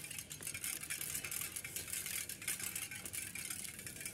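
Bicycle being ridden over a rough street: a steady light rattle and hiss with many quick small ticks.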